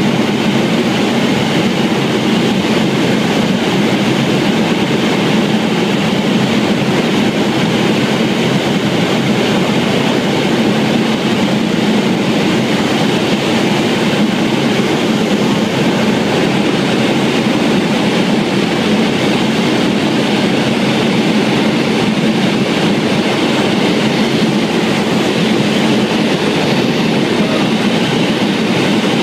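Steady, loud in-flight cabin noise of a C-130 Hercules, its Allison T56 turboprop engines running with a strong low propeller hum.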